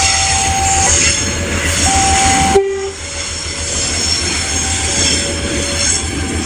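Train horn sounding single notes that switch between a higher and a lower pitch, a telolet-style tune, over the steady rumble of a running train. The sound changes abruptly about two and a half seconds in, and the horn notes come back fainter after that.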